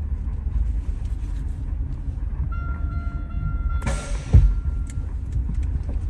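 Steady low road rumble inside the cabin of a 2003 Buick Regal riding on air suspension. A steady high whine comes in for a couple of seconds partway through. About four seconds in there is a short hiss, then a heavy thump as the car jolts.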